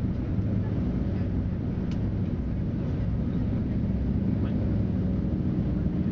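Steady cabin drone of the Lisunov Li-2's two nine-cylinder, air-cooled ASh-62IR radial engines in flight, an even low hum.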